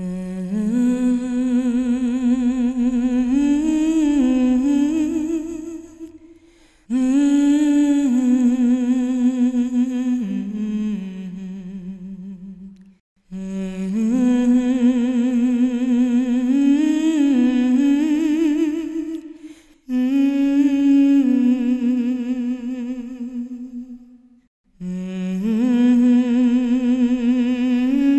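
A single voice humming a slow, wordless melody with vibrato, in long phrases of about five to six seconds separated by short pauses.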